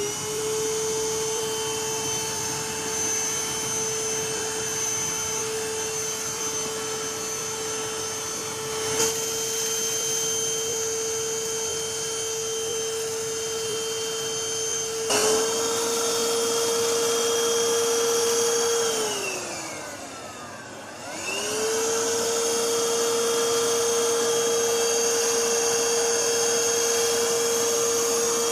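A 14.8 V cordless handheld vacuum cleaner running with a steady high motor whine, with two sharp clicks partway through. About two-thirds of the way in, the motor slows with a falling pitch, then spins back up to full speed and runs steadily again.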